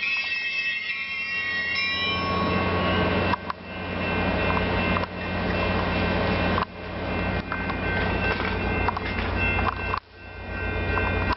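Caltrain diesel-electric locomotive hauling a passenger train in. High steady tones from the approaching train stop about two seconds in, then the locomotive engine's low steady drone runs on under rail and wheel noise.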